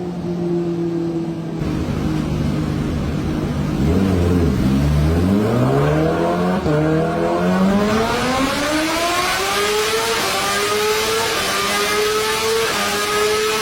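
Kawasaki Ninja H2's supercharged inline-four engine, its note dipping briefly about four seconds in and then climbing steadily in pitch for about eight seconds as it accelerates. A steady lower hum runs under it through the first half.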